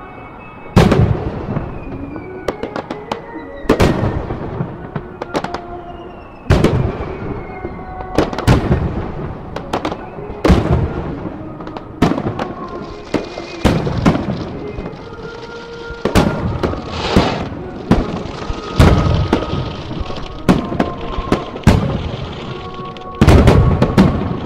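Aerial firework shells bursting, more than a dozen sharp booms a second or two apart with a quick run of several bursts near the end, over music playing from loudspeakers.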